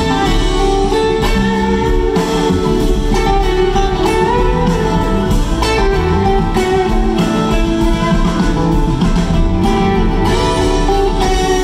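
Live string band playing an instrumental jam over a steady drum beat, with acoustic guitar and banjo to the fore.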